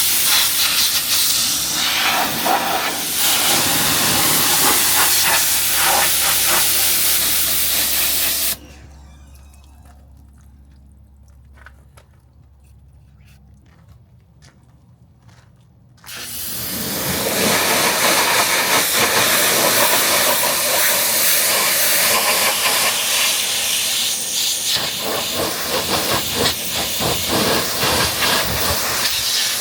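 Pressure washer jet spraying water onto a car's bodywork, a loud steady hiss. The spray stops abruptly about a third of the way in, leaving a quiet stretch with a few faint drips and ticks for about seven seconds, then starts again.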